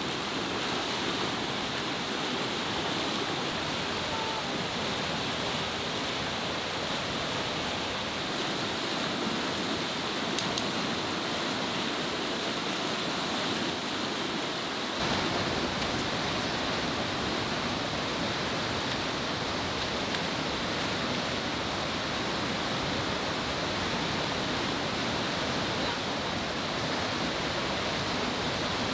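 Fast-flowing river rushing steadily, a continuous wash of water noise. About halfway through, the sound turns fuller and deeper.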